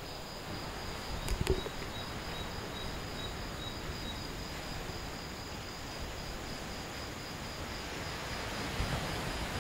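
Atlantic surf washing in as an even rush, with night insects chirping in a steady, fast, high-pitched pulse and a second insect joining briefly. A couple of sharp knocks come about a second and a half in.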